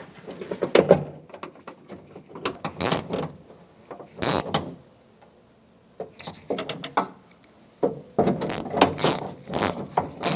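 Scattered clicks and knocks of tools and metal parts inside a truck door, with a few sharp clicks, then a socket ratchet clicking rapidly from about eight seconds in as the door handle's front mounting bolt is run in.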